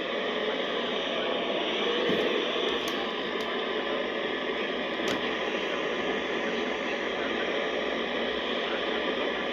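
Steady hiss of static from a weather radio receiver tuned to the NOAA Weather Radio broadcast, the signal faded into noise, with a few faint clicks.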